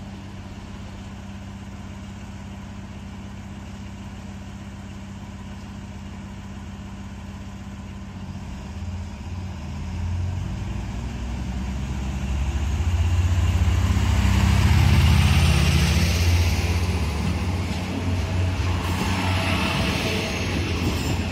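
Diesel multiple unit (Alstom Coradia LINT) running at idle with a steady hum. About halfway through, the engine revs up as the railcar pulls away from the platform, growing loudest a few seconds later. It ends with the rolling noise of the train passing close by.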